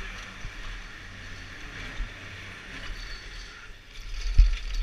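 Chairlift running as the chair pulls out of the base terminal: a steady low mechanical rumble with hiss, and one low thump about four seconds in.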